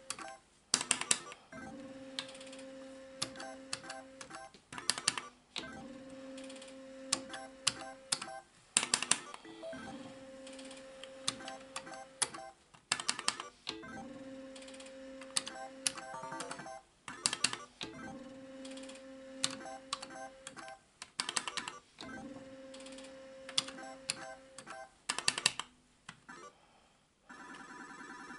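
Solex 2 pachislot machine played game after game. About every four seconds the start lever clacks, a steady electronic tone sounds while the reels spin, then the three stop buttons click in quick succession. About a second before the end, a warbling, ringing electronic chime starts.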